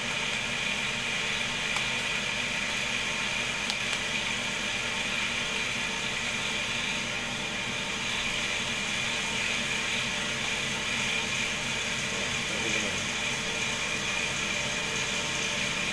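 Cotton candy machine running steadily, its DC motor spinning the head with an even hum and a steady high whine.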